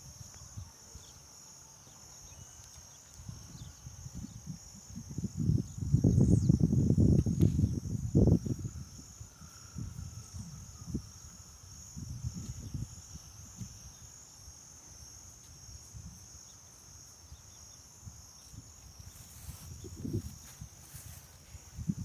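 Insects chirring steadily in a high, even drone, with irregular low rumbles and knocks over it, the loudest a few seconds in.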